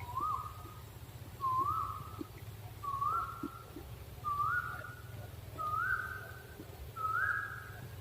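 Small owl (owlet) calling: a series of six whistled notes about one and a half seconds apart, each swooping up and then held briefly, and each a little higher in pitch than the last.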